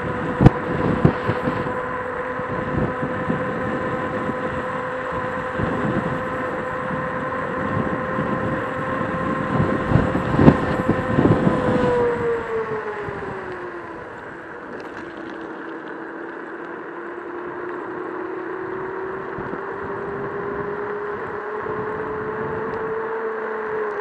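Joyor S5 electric scooter's hub motor whining at cruising speed under wind and road rumble. About halfway through, the whine drops in pitch as the scooter slows, then slowly climbs again as it picks up speed. There are a couple of sharp knocks from the ride.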